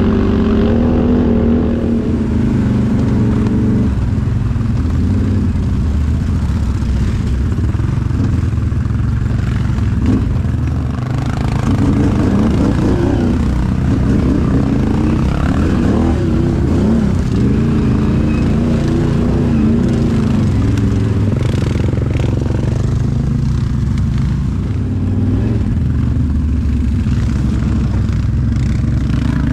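Can-Am Outlander XMR 1000R's V-twin engine running while the ATV is ridden, its pitch rising and falling with the throttle, most of all in the middle.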